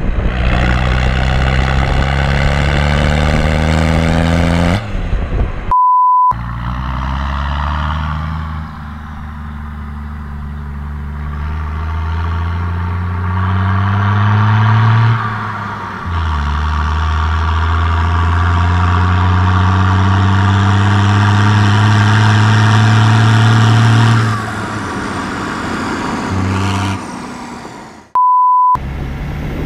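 Peugeot 306 turbo diesel engine accelerating, its pitch climbing, then cut off by a short electronic beep. Then an International 1455 XL tractor's diesel engine revs up, drops back and runs steady under load as it drives by, followed by a second beep near the end.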